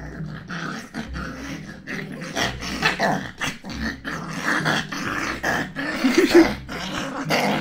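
Young puppy growling in play while it mouths and bites a person's hand, in short rough bursts.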